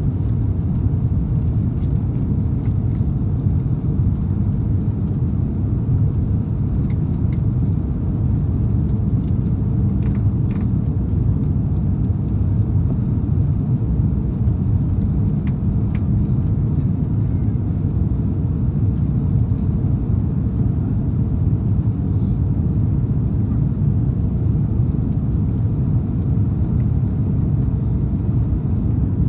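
Steady low rumble of an Airbus A340's four jet engines at takeoff and climb power, heard from inside the cabin as the airliner lifts off and climbs away.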